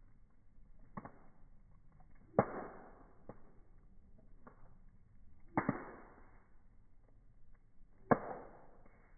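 Wood bonfire crackling, with three loud, sharp pops a few seconds apart, each trailing off briefly, and fainter crackles between.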